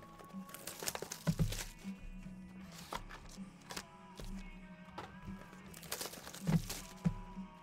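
Sealed football trading-card boxes being handled and set down on a table mat: a series of knocks and taps, the loudest about a second and a half in and again near the end, over background music.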